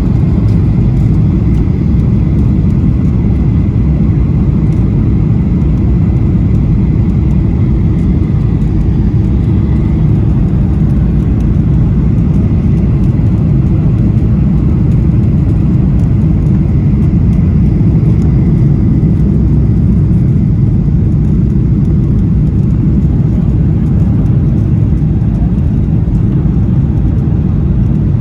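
Cabin noise inside a Boeing jet airliner: a loud, steady low rumble of engines and airflow. A faint high whine fades out about ten seconds in.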